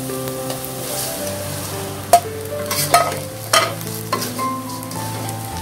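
Flattened rice (chira) being stirred in hot oil in a wok with a metal spatula, the oil sizzling. Several sharp scrapes and knocks of the spatula against the pan come in the middle of the stretch.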